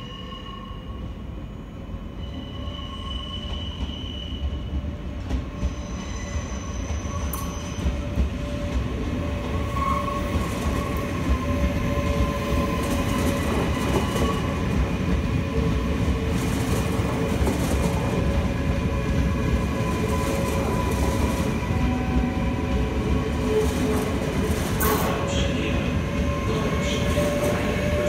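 NS VIRM double-deck electric train rolling slowly along the track, growing steadily louder as it comes close and passes. Its wheels squeal on the rails with several steady, high tones, and a few sharp clicks come near the end.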